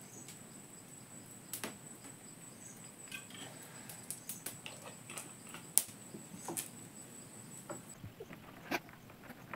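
Small wood cooking fire crackling faintly with sparse sharp pops, over a thin steady high whine that stops abruptly about eight seconds in.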